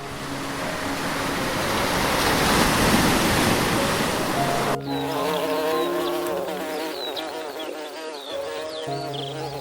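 Insect buzzing that swells and fades, over background music with long held notes. About halfway through it cuts abruptly to birds chirping, with the music going on.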